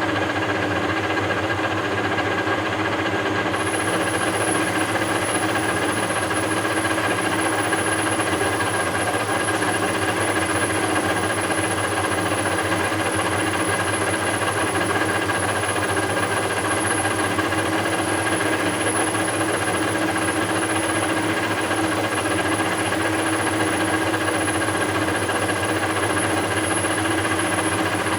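Webb WL435 17x40 gap lathe running at 710 RPM with the power feed engaged, taking a slow-feed finishing face cut: a steady mechanical whir and hum. A thin high whine joins about three seconds in.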